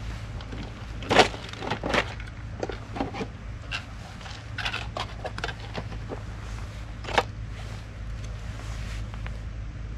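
Plastic bait tubs, their lids and a plastic tackle box being handled: a string of irregular clicks and knocks, the two loudest about a second in and about seven seconds in, over a steady low hum.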